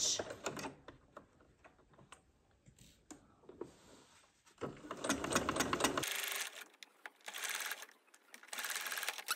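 Electric sewing machine stitching a seam in short runs that start and stop. The first few seconds are quiet apart from a few light clicks.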